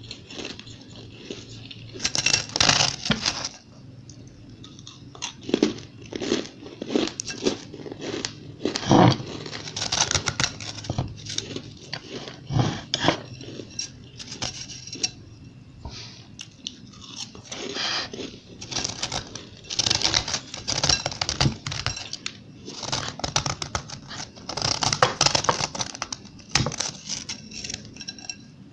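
Powdery freezer-frost ice crunching: fingers squeezing and scooping it in a glass bowl, and mouthfuls of it being chewed. The crunches come in irregular bursts of dense crackling.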